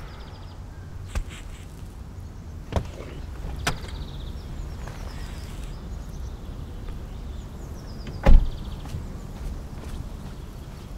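Car door opening with a few sharp clicks, then slammed shut with a heavy thump about eight seconds in, over a low steady rumble.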